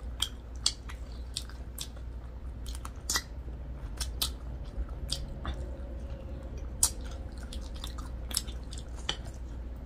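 Close-miked eating sounds from two people chewing fried chicken wings: chewing with sharp, irregular mouth clicks and smacks, a few louder ones about three, four and seven seconds in.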